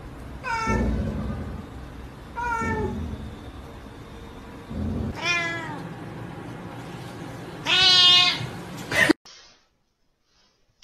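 Domestic cat meowing four times, each call drawn out and falling in pitch, the last one the loudest; then the sound cuts out suddenly.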